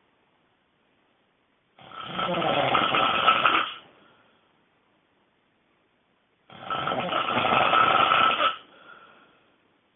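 A person snoring extremely loudly: two long snores, each about two seconds, roughly five seconds apart, with near silence between them.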